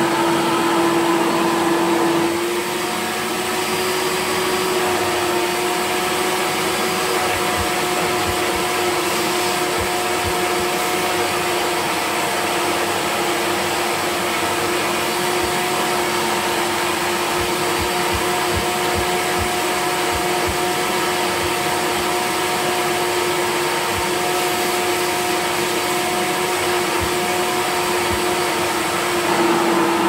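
Hoover Commercial C1417 dual-purpose upright vacuum cleaner running with a steady hum. About two seconds in, the pitch steps slightly higher and it gets a little quieter, then returns near the end. The motor runs smoothly with its fan vanes reshaped and bearings oiled, and most of the remaining noise comes from the brush roll.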